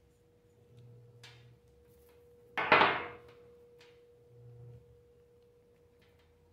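A small metal pneumatic valve set down on a wooden workbench with a single sharp knock about two and a half seconds in, among a few lighter handling clicks. A faint steady hum runs underneath.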